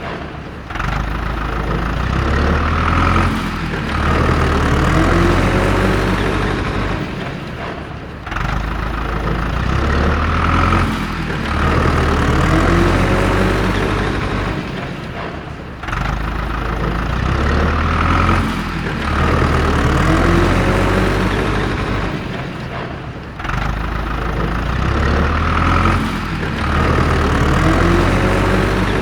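Truck engine sound running and revving, looping about every seven and a half seconds, with a brief drop in loudness at each repeat.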